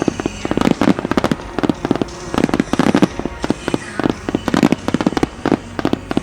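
Aerial firework shells bursting in a rapid starmine barrage: dense clusters of sharp bangs, several a second, one volley after another.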